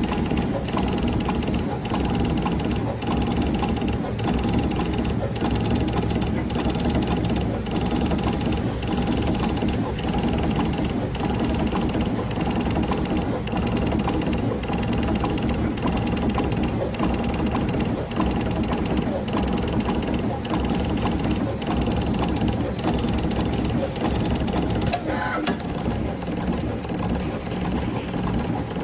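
Automatic multi-nozzle PVC label dispensing machine running: a steady motor hum with frequent clicks as its gantry moves the dispensing heads over the mould.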